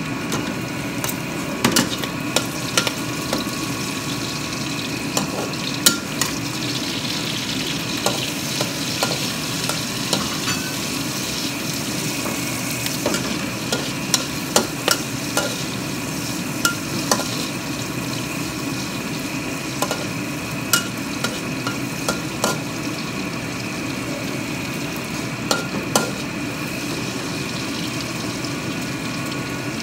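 Mushrooms frying in a wok while a metal spatula stirs them, scraping and clacking against the pan at irregular moments. A steady hiss and hum runs underneath.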